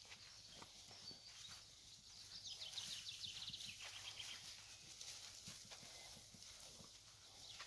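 Faint footsteps crunching on a leafy forest path, a steady scatter of small clicks and crackles, with a faint high rapid trill about two and a half seconds in.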